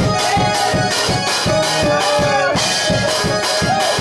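Up-tempo praise music: an electronic keyboard plays a sustained, bending lead line over a fast steady beat of about four hits a second.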